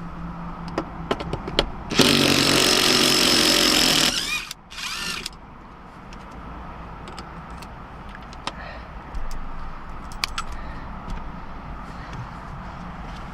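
A handheld power tool spins up in a two-second burst with a steady motor whine, then gives a second short burst of about half a second, undoing a seat mounting bolt. Light clicks and clatter of tools and parts come before and after.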